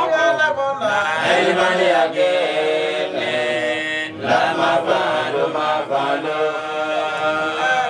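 A man chanting in a single voice, drawing out long, steady notes with short breaks between phrases.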